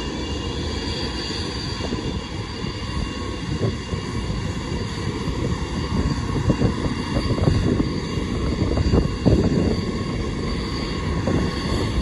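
Antonov An-124-100's four D-18T turbofan engines whining steadily at taxi power, growing a little louder in the second half, with wind gusting on the microphone.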